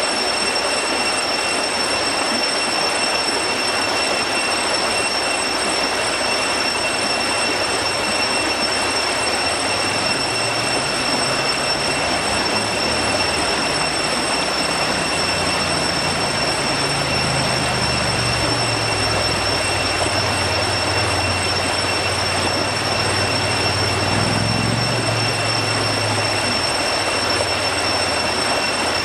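Waterfall's steady roar of falling water, with a few faint steady high tones above it and a deeper rumble that swells in from about a third of the way through.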